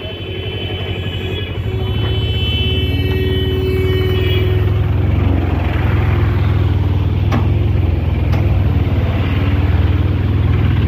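Auto-rickshaw's small engine running as it drives along, a deep steady rumble with passing road traffic alongside. A high steady tone sounds over it at first and fades out about four seconds in.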